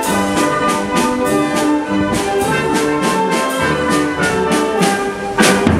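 Spanish street marching band playing a march: brass with trumpets, trombones and tuba carry the tune over a steady beat from bass drum and snare drums. A louder drum hit comes near the end.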